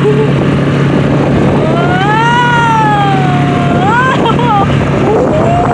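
Outboard motor of an inflatable dinghy running steadily under way, with rushing wind and water. Over it, a high wavering whine-like voice slides up and down in long glides, rising sharply about four seconds in.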